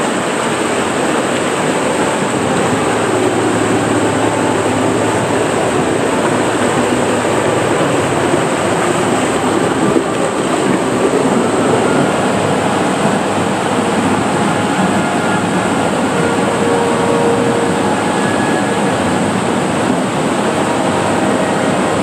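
Rushing, churning water in a wild-water river slide channel, heard by a rider floating down it. It is a loud, steady rush that does not let up.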